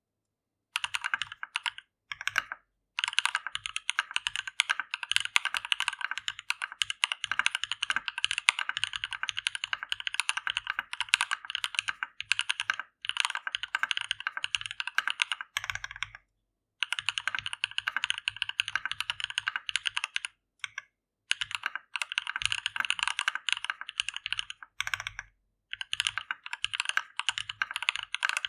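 Fast typing on a custom mechanical keyboard: Gateron x Siliworks Type R switches in a brass-plated Thermal V2 case, with GMK MTNU keycaps. The typing starts just under a second in and runs in quick strings of key presses, broken by a few short pauses.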